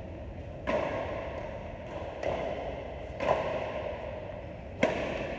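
Badminton rackets striking a shuttlecock in a rally: four sharp hits roughly one to one and a half seconds apart, each echoing briefly in a large hall.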